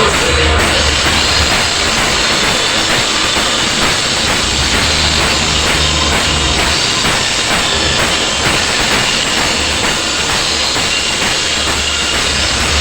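A DJ remix track played loud through homemade speaker boxes (tweeter horns, mid-range and 15-inch subwoofers) all running together on four amplifiers, with a heavy drum beat and deep sub-bass that drops in and out.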